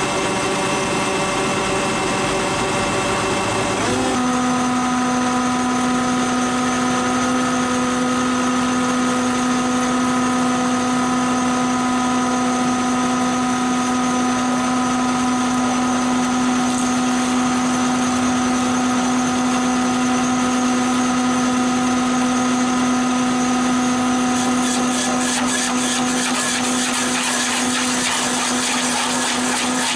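A stump grinder's engine running steadily at high speed. Its pitch jumps abruptly about four seconds in, and a fast rhythmic chatter joins it about 25 seconds in.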